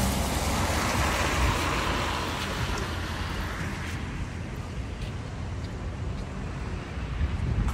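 Road traffic noise: a motor vehicle's low rumble with a hiss that thins out after about three seconds.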